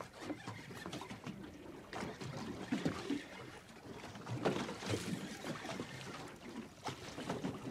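Sea water slapping and lapping against the hull of a drifting boat, in irregular splashes, with louder slaps about three and five seconds in.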